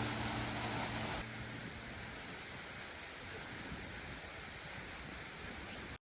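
Steady, even rush of a waterfall's falling water. It drops a little in level about a second in and cuts off suddenly near the end.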